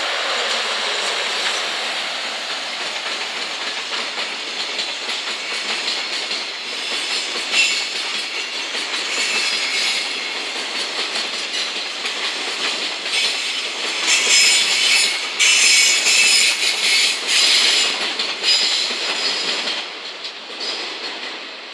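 Freight train of Chiki flat wagons loaded with long steel rails rolling past behind an EF210 electric locomotive: steady rumble and clatter of wheels over the rail joints. About two thirds of the way through it grows louder and shriller for a few seconds, then fades as the last wagon goes by near the end.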